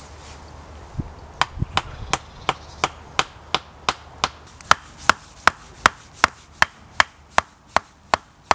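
Hand-carved wooden tent peg being hammered into the ground: a steady run of sharp wooden knocks, about three a second, starting about a second in.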